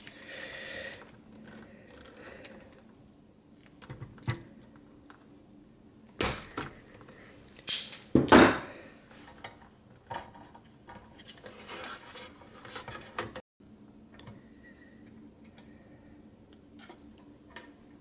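Scattered clicks, taps and metallic clatter of wire connectors and fingers working inside a sheet-metal furnace control box, with a few louder knocks about six and eight seconds in.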